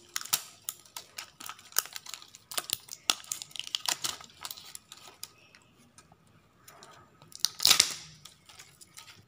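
Plastic wrapping being peeled off a L.O.L. Surprise Lils toy ball, crackling and crinkling in quick short snaps, with one louder rustle about three-quarters of the way through.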